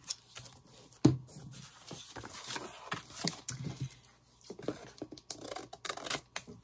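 Scissors snipping into a stack of paper, with paper rustling and scraping as it is handled. A sharp knock on the tabletop about a second in.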